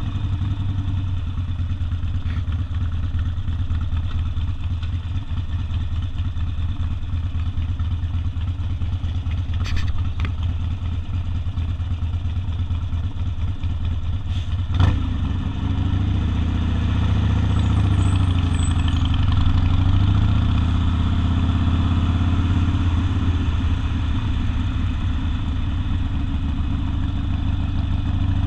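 Harley-Davidson Sportster's air-cooled V-twin running through an open exhaust, a steady deep throb whose pitch dips and rises a little midway. A single sharp knock about halfway through.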